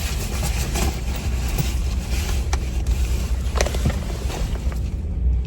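Steady low rumble and hiss inside a parked car's cabin, from the engine idling and the heater running, with a few faint clicks and taps.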